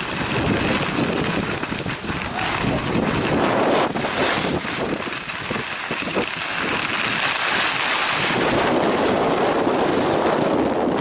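Wind buffeting the microphone of a handheld camcorder while skiing downhill, mixed with the hiss of skis on packed snow.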